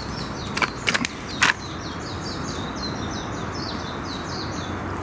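Three sharp knocks in the first second and a half as a pole is struck against a tree trunk to knock a beetle down. Behind them a steady run of high, falling chirps, several a second.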